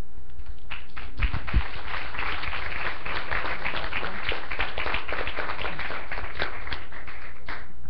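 Congregation applauding, starting about a second in and dying away near the end, with a couple of low thumps as it begins.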